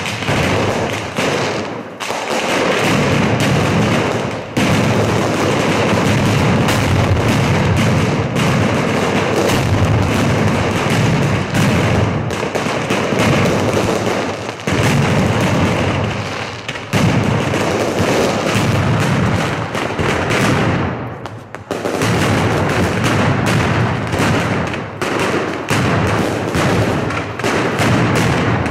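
Dense barrage of firecrackers and fireworks, a nearly unbroken crackle of rapid bangs with heavier booms, easing briefly about three-quarters of the way through before picking up again.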